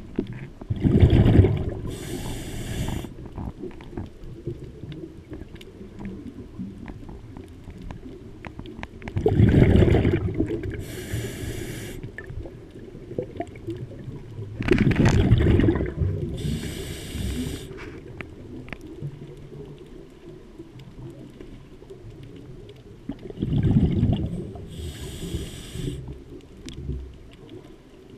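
Scuba diver breathing through a regulator underwater: four breaths about every eight seconds, each a low bubbling rush of exhaled bubbles followed by a brief hiss of the regulator's inhale.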